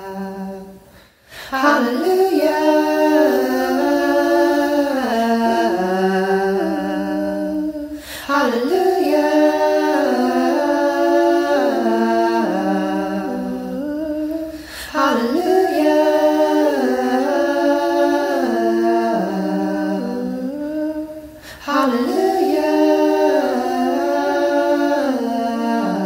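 A cappella singing with no clear words, in four long phrases of about six or seven seconds each with brief breaths between. In places a held lower note sits under a moving upper line.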